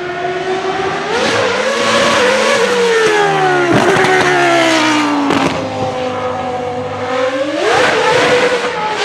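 Williams FW14B Formula 1 car's Renault V10, driven through straight-cut gears, running at high revs. The engine note rises, then falls steadily for several seconds with two sharp breaks, and climbs again near the end.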